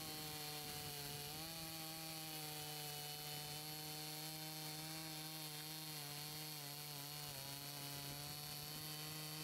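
Makita EA5000P 50cc two-stroke chainsaw running at full throttle with a semi-chisel chain, cutting down through a stack of 4x4 posts. The engine note holds a steady pitch under the cutting load and is fairly quiet in the mix.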